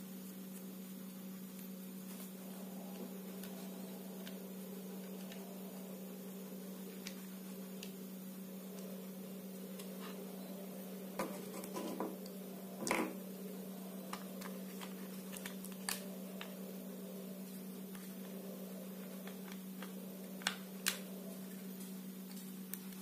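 Plastic parts of a take-apart toy construction truck clicking and knocking while a wheel is unscrewed with a toy screwdriver, with a louder cluster of knocks about halfway through and two sharp clicks near the end, over a steady low hum.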